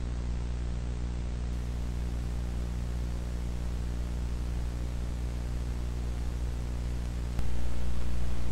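Steady low electrical hum with a hiss over it, like the buzz of an old videotape. It gets louder about seven seconds in.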